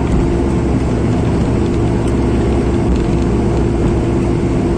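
Steady cabin noise of a jet airliner on the ground just after landing: a loud even rumble of engines and airflow with a steady hum running through it.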